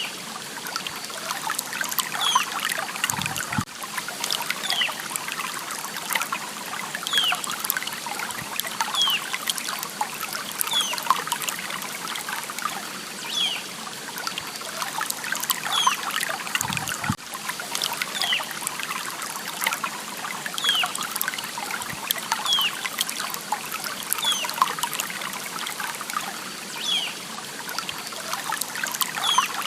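Water trickling and babbling steadily, full of small splashes, with a short high chirp that falls in pitch every second or two.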